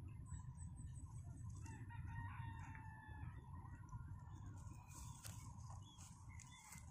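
A rooster crowing once, faint, a single long crow starting about a second and a half in, over a steady low rumble.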